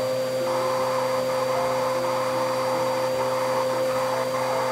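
Toy handheld vacuum cleaner running with a steady, even hum.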